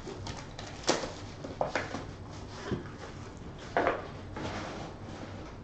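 Handling noises as a sealed sports-card box is unwrapped and handled: a few short rustles and knocks, the loudest near the end.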